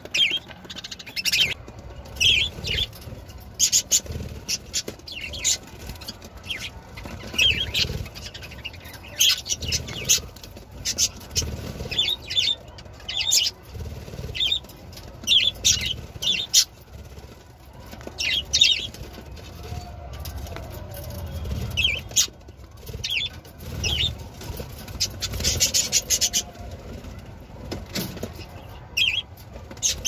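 Budgerigars chirping: short, sharp calls recurring irregularly, sometimes in quick clusters, over a low background rumble.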